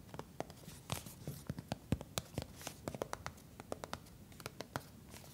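Fingernails tapping and scratching on a cardboard tampon box: quick, irregular clicks and taps, several a second.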